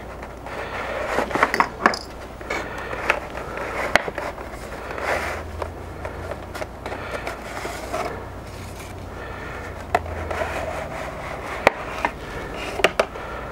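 Clear plastic clamshell being slid out of a printed cardboard box: plastic and card rubbing and scraping, broken by several sharp clicks of the plastic.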